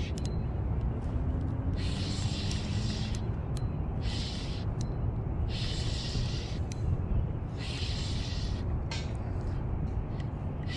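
Wind buffeting the microphone with a steady low rumble, with a hissing burst about every two seconds.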